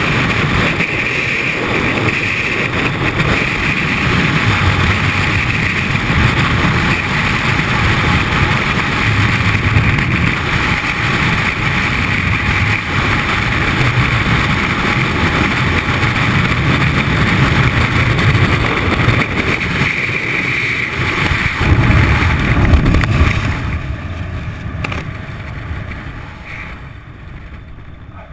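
Loud, steady freefall wind rushing over the camera's microphone during a skydive. About 23 seconds in it briefly peaks, then fades over a few seconds as the parachute opens and the fall slows.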